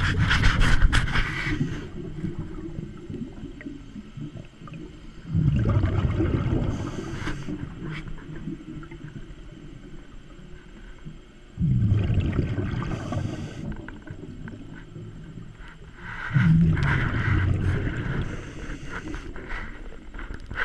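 Scuba diver's regulator breathing underwater: four exhalations about five seconds apart, each a sudden rush of bubbling rumble that fades over a couple of seconds.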